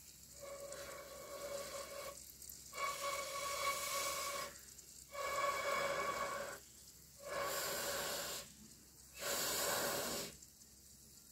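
Faint sizzling of a battered okra pakoda deep-frying in oil in a small clay pot, coming and going in five stretches of about a second each.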